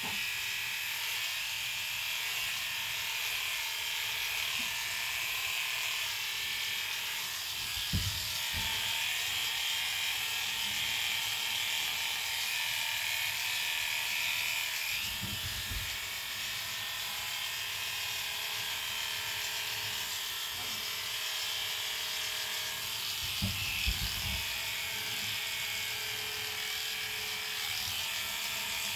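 Electric dog-grooming clippers running with a steady buzz as they trim an Airedale terrier's coat. A few short, dull low thumps come in along the way.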